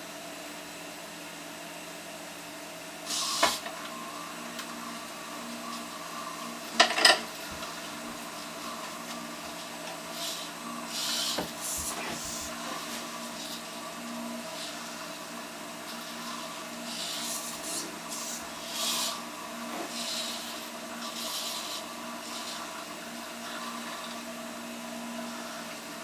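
Hobby servo motors of a homemade four-servo robot arm buzzing in many short bursts as its joints move, over a steady electrical hum. Two louder knocks of handling come about three and seven seconds in.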